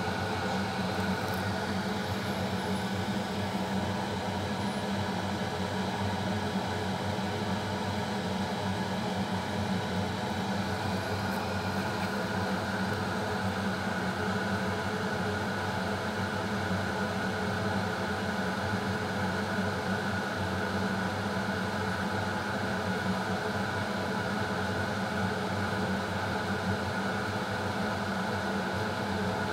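Steady hum of a running machine with an even hiss over it, unchanging in pitch and level.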